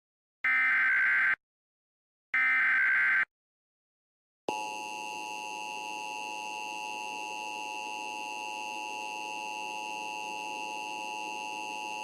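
Emergency Alert System broadcast: the last two of three SAME header data bursts, short harsh digital screeches about a second long each, carrying the coded alert. After a second of silence the EAS two-tone attention signal starts about four and a half seconds in and holds steady.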